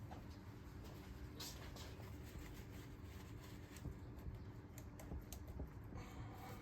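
Faint, scattered clicks and light knocks of tools and parts being handled in an engine bay during repair work, over a steady low hum.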